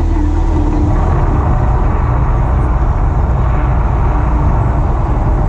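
Staged eruption rumble of the Mirage volcano attraction: a loud, steady, deep rumbling noise that takes over from the show's music within the first second.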